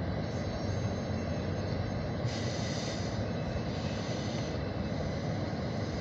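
An OC&T freight train's cars rolling past at a distance: a steady rumble of wheels on rail, with a brighter hiss joining in from about two seconds in until past the middle.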